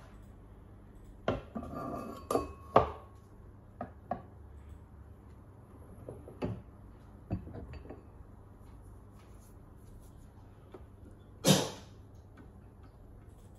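Clatter and knocks of a Thermomix TM6's plastic lid being lifted off and set down on the counter, then a few light clicks and one louder clink near the end as a hand reaches into the stainless-steel mixing bowl.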